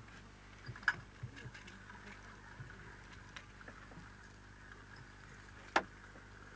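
Faint clicks and light knocks of hands handling a fishing hook and line, with two sharper clicks about a second in and near the end, over a steady low hum.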